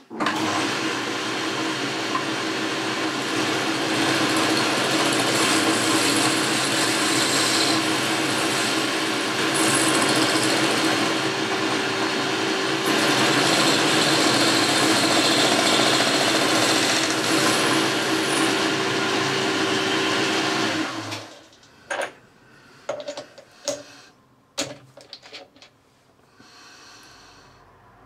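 Boxford lathe running with a steady hum while it turns a small aluminium part; it is switched off and runs down about 21 seconds in. A few sharp clicks and knocks follow as the part and chuck are handled.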